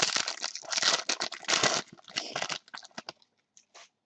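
Foil trading-card pack wrapper crinkling loudly as it is torn open, for about two and a half seconds. Then a few faint light clicks and rustles as the cards are handled.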